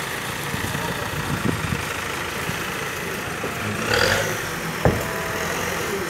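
Heavy diesel engine idling steadily, with a short louder rush of noise about four seconds in and a sharp knock about a second later.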